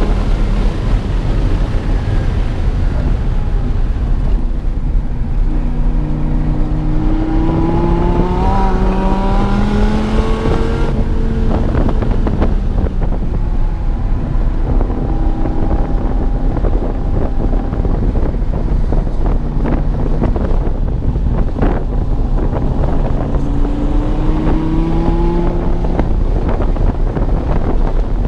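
The 8.4-litre V10 of a 2016 Dodge Viper TA 2.0, running an aftermarket tune and headers, pulling hard on track, its pitch rising under acceleration twice and dropping sharply about eleven seconds in as the driver lifts. Wind noise buffets the microphone.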